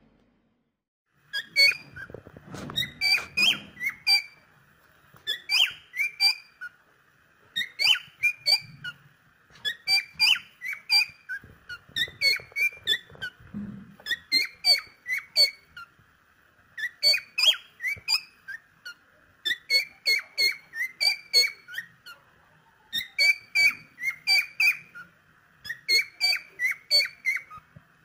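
A cockatiel chirping and whistling in quick runs of short, sharp notes, several a second, with brief pauses between runs. The calling starts about a second and a half in.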